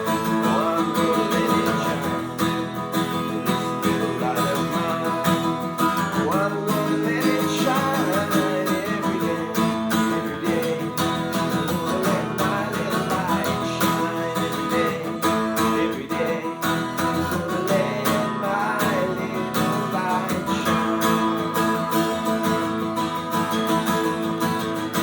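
Music: a strummed acoustic guitar with a melody line over it, playing steadily and fading out just as it ends.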